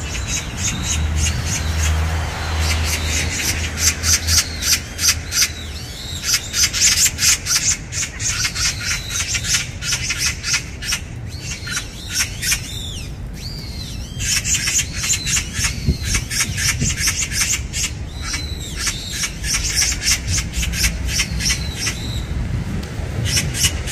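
Oriental magpies chattering at one another: repeated bouts of rapid, harsh rattling calls, each a few seconds long with short pauses between.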